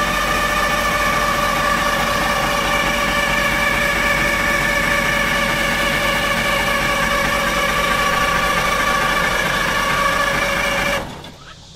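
Starter cranking the DROTT excavator's Detroit Diesel engine: a steady whine with the engine turning over at an even speed for about eleven seconds, then cutting off without the engine catching. It is getting a little fuel but not enough to run, which the crew suspects may be a stripped on/off lever.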